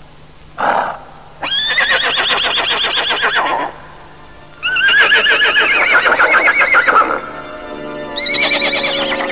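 A horse whinnying three times, each a long trembling call, after a short breathy blow just under a second in. Music comes in about seven seconds in, a long tone that slowly falls in pitch.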